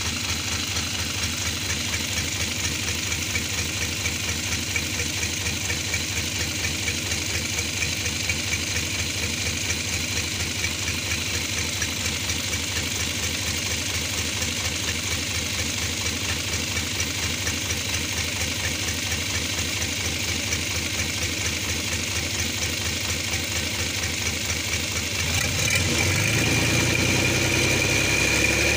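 Hino H07C inline-six diesel engine running out of its truck, idling steadily with a fast knocking beat and its fan turning; near the end it is given throttle and speeds up and gets louder. The seller hears a slight roughness at low throttle, which he puts down to one injector not spraying evenly.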